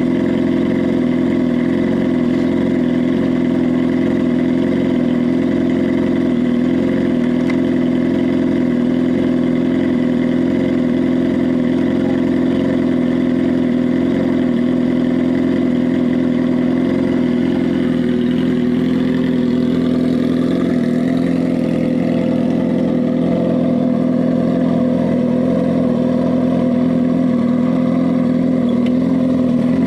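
Sport motorcycle engine idling steadily.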